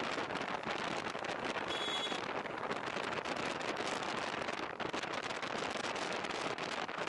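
Riding-speed wind and wet-road tyre noise on a motorcycle-mounted action camera's microphone: a steady, crackly hiss. A brief high tone sounds about two seconds in.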